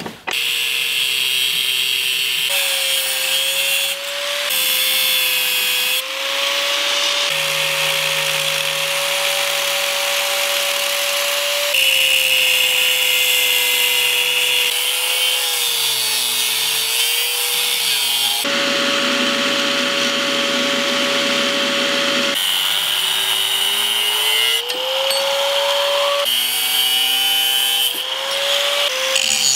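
Makita angle grinder with a cut-off disc cutting through leaf spring steel: a steady motor whine over a harsh grinding hiss, its pitch sagging and recovering as the disc bites under load. The sound breaks off and resumes abruptly several times.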